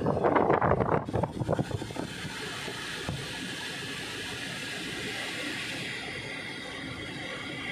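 Steady hum and hiss inside the cabin of a Toyota SUV with the ignition on, consistent with the engine idling and the ventilation running. The first two seconds or so carry louder, irregular rough rumbling and rubbing before it settles.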